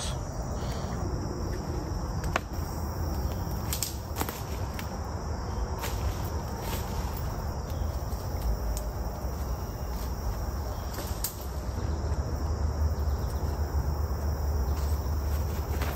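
Steady chirring of insects in the woods. Over it come rustling leaves and scattered sharp snaps and clicks as sticks are cleared off the ground and a backpack is handled, above a low rumble that grows louder in the second half.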